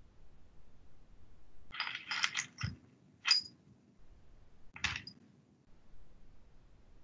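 A few short clicks and clatters of small hard objects being handled, in four quick bursts over about three seconds.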